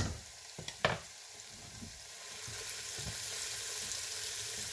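Onion and ginger-garlic paste sizzling in hot oil in an aluminium pressure cooker, with one sharp knock of a metal spoon on the pot a little under a second in. The sizzle grows somewhat louder after about two seconds.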